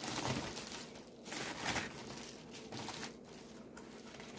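Packaging crinkling and rustling as 4-H ribbons are handled and unwrapped. There are two main bursts in the first two seconds, then fainter rustles.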